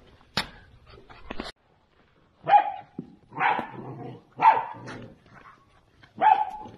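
Central Asian Shepherd puppies, about two months old, barking: four short barks about a second apart, starting some two seconds in, after a few light knocks and clicks.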